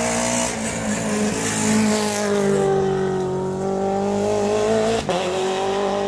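Rally car at full speed passing close by, its engine note sinking as it goes past, then climbing as it accelerates away. There is a short break in the note about five seconds in, at a gear change.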